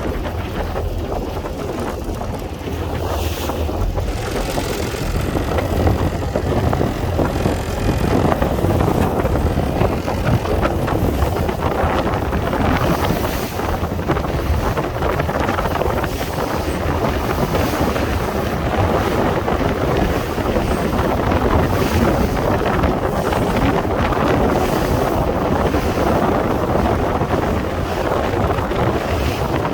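Sea waves and wind, with wind buffeting the microphone: a steady rough rushing noise with a heavy low rumble.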